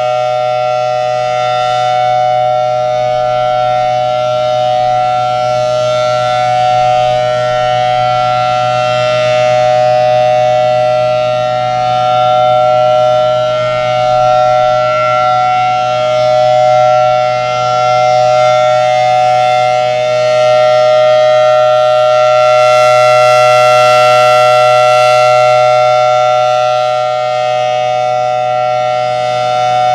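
Federal Signal Thunderbolt 1000T tornado siren sounding its steady alert signal: a loud, held two-tone chord from its 5/6-port chopper, not changing pitch, its level swelling and easing slightly.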